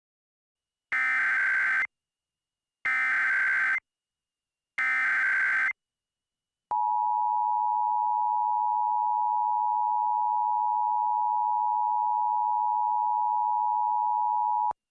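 Emergency Alert System SAME header: three short bursts of screeching digital data tones, about a second each, encoding a civil danger warning. They are followed by the EAS two-tone attention signal, a steady dual tone held for about eight seconds that cuts off abruptly.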